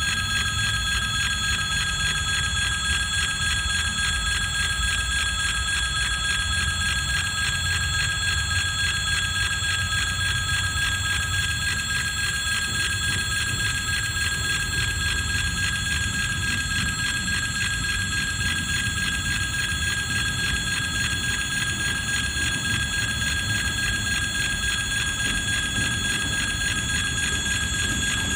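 An electric warning bell ringing steadily without a break, over the low rumble of a TEM2 shunting diesel locomotive's engine as it rolls slowly closer.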